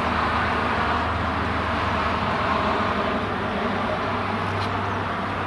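Steady distant road traffic noise: a continuous low rumble and hiss with no distinct events.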